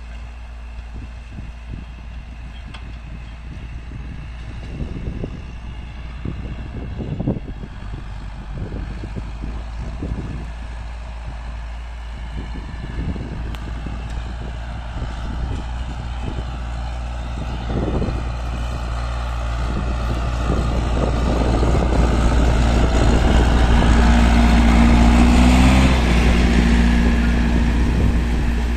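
Massey Ferguson 3060 tractor engine running steadily under load while pulling a disc harrow through ploughed soil, with scattered knocks in the first part. It grows louder as the tractor comes close in the last few seconds.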